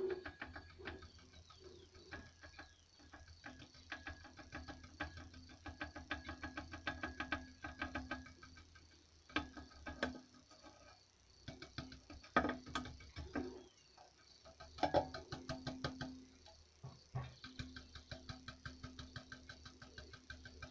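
Rapid small clicks and taps, with a few louder knocks, as a tool is worked down into a glass jar packed with burned filter ash and foils.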